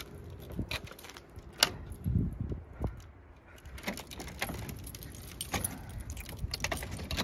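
Scattered light clicks and rattles, with a few soft thumps, as a hand handles the broken plastic of a smashed headlight and front bumper.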